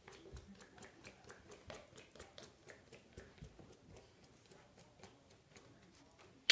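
Faint quick clicking, several clicks a second, with soft rustling, from dogs moving about on carpeted stairs.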